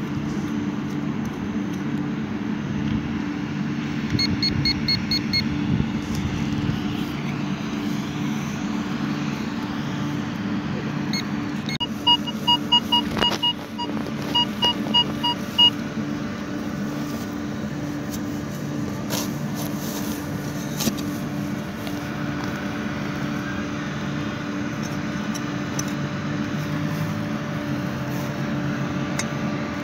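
Metal detector signal beeps: a quick run of short, high beeps about four seconds in, then a louder series of pulsed beeps midway as the search coil sweeps over grass. A steady low hum runs underneath.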